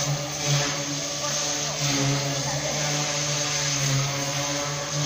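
Small electric motor and propeller of an indoor radio-controlled model aircraft buzzing steadily in flight, the tone swelling and fading slightly as it passes.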